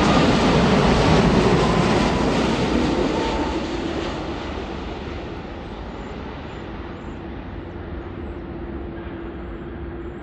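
Boeing 787-10 Dreamliner's jet engines passing on landing: a loud jet rumble for the first few seconds that fades into a lower, steady rumble.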